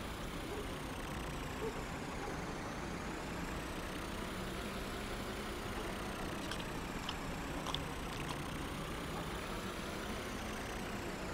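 Steady running-engine sound effect of cartoon trucks driving along, an even low rumble. A few faint ticks come in the second half.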